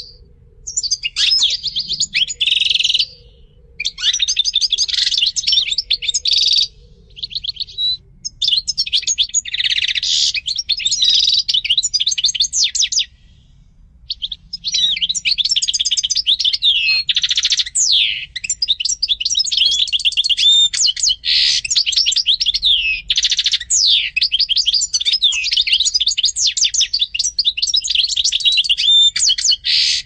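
European goldfinch singing: a rapid, twittering song of quick trills and sliding notes. It comes in phrases broken by short pauses during the first half, then runs on almost without a break from about halfway.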